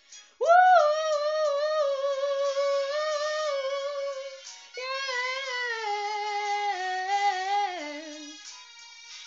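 A woman singing two long held notes over a pop backing track: the first starts about half a second in and is held steady, the second steps downward and ends about eight seconds in, after which the backing music plays on more quietly.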